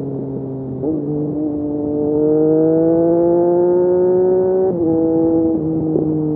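Triumph Street Triple RS 765 cc three-cylinder engine through an SC Project S1 slip-on exhaust. Its note climbs steadily under acceleration, getting louder, then drops suddenly near the five-second mark at an upshift and holds steady.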